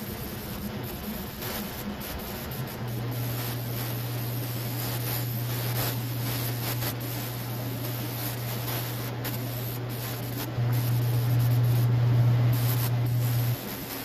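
Gravity-feed paint spray gun hissing steadily as it lays a second coat of clear coat onto a jet ski hull. A low steady hum joins about three seconds in and is louder for about three seconds near the end.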